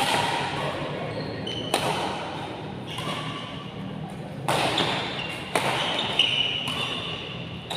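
Badminton rally: rackets hitting the shuttlecock about five times at uneven intervals, with shoes squeaking briefly on the court floor between shots, all echoing in a large hall.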